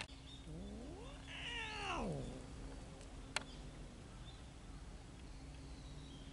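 A cat giving one long, drawn-out meow that rises and then falls in pitch, starting about half a second in.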